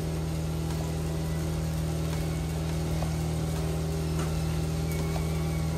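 Steady low mechanical hum of a running motor or fan, with a few faint light clicks about two, four and five seconds in.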